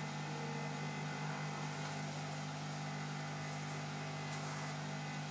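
Hot air rework station blowing steadily from its handpiece, a continuous hiss over a low hum, as it heats and softens the adhesive under a laptop screen bezel.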